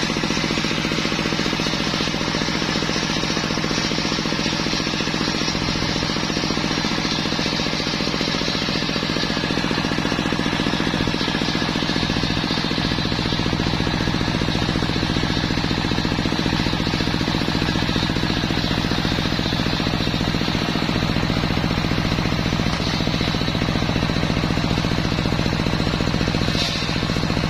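Homemade engine-driven circular sawmill running steadily: a fast pulsing engine beat under a constant hum.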